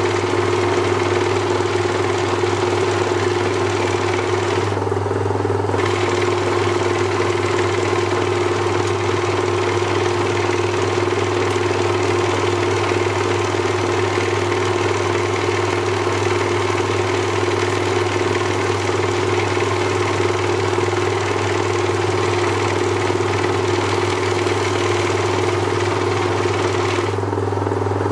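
Small workshop lathe's electric motor running steadily, with a strong, even hum. A higher hiss over it drops out briefly about five seconds in and again near the end.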